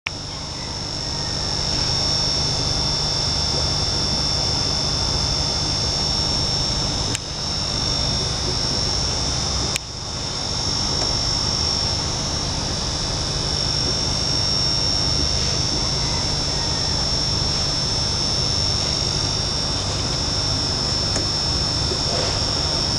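Steady machine drone with a constant high-pitched whine over a low rumble, cutting out briefly twice, about 7 and 10 seconds in.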